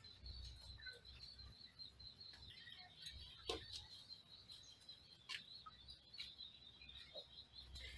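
Faint scattered clicks and scratches of mice clambering over a wire fan grille, with a few brief high chirps.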